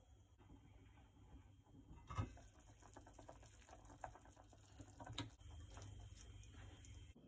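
Faint bubbling of water simmering in a stainless steel pot with salmon pieces poaching in it, with a few light clicks, the sharpest about two seconds in, as the pot lid is handled and lifted.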